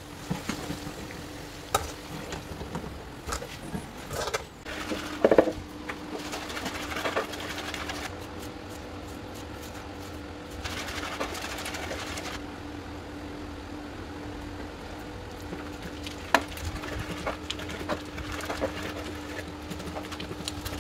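Knife and pestle work in an earthenware grinding bowl (asanka): scattered knocks and scrapes as onion is sliced into the bowl, then a wooden pestle grinds tomatoes and pepper against the clay. A steady low hum comes in about five seconds in and runs underneath.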